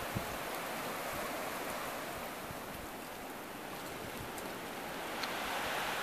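Cold winter wind gusting through snow-laden pine branches: a steady rushing noise that eases a little midway and picks up again near the end.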